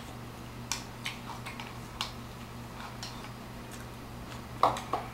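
A toddler chewing a chicken drumstick with wet mouth and lip-smacking clicks, irregular and soft, with two louder smacks near the end, over a low steady hum.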